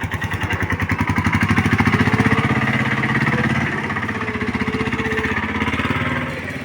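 Small vehicle engine running with a fast, even pulsing beat, getting louder over the first two seconds and easing off about six seconds in.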